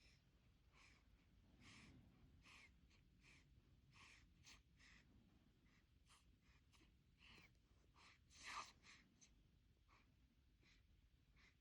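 Faint breathing and small mouth noises from a newborn baby: a short soft sound every half second or so, the loudest about eight and a half seconds in.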